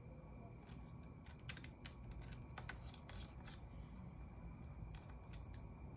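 Scattered light clicks and taps from small tools being handled at a repair bench, clustered in the first half, over a steady hum with a faint high whine.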